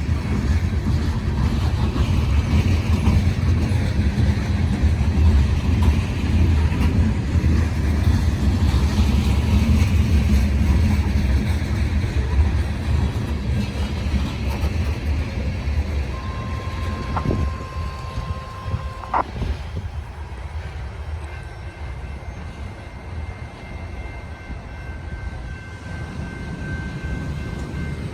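Heavy loaded unit grain train passing on an uphill grade: a loud, deep rumble of diesel locomotives pulling hard and rolling freight cars, easing off after about twelve seconds. A brief steady tone and a sharp click come about two-thirds of the way through.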